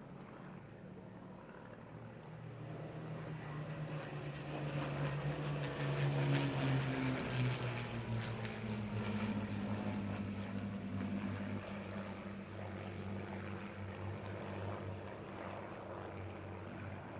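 Piston-engined WWII fighter aircraft flying past: the propeller-engine drone builds to its loudest about six seconds in, drops in pitch as the aircraft go by, then slowly fades.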